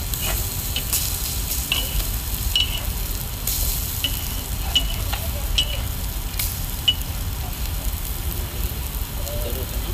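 Crab and prawn egg omelettes sizzling as they fry on a large flat cooking plate: a steady hiss and crackle, with a few short high chirps over it.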